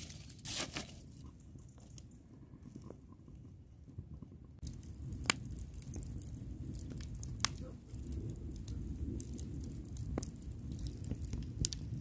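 Wood campfire burning, crackling with scattered sharp pops. It is quieter for the first few seconds, then the crackle grows, with the loudest pops about five and seven seconds in.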